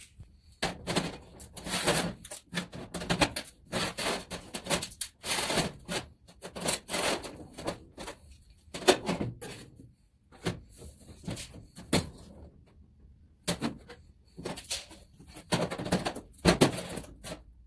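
Irregular clattering, knocks and scrapes as sheet-metal panels and hand tools are handled and worked on a workbench.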